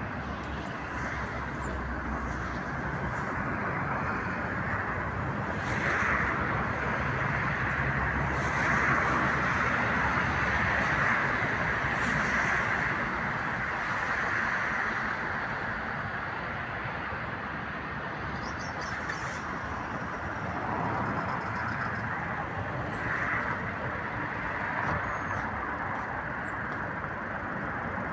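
Steady traffic noise, with a few faint, brief high chirps of small birds over it.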